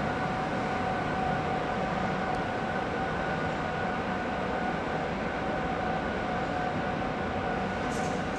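SNCF BB 25500-class electric locomotive pulling away with its coaches: a steady high whine over the rumble of the train on the track.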